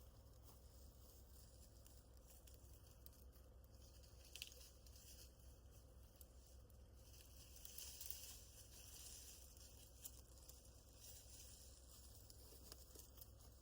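Near silence with faint rustling and crunching of sticks and brush being packed into a driveway rut, a light knock about four seconds in and a slightly louder rustle around eight seconds.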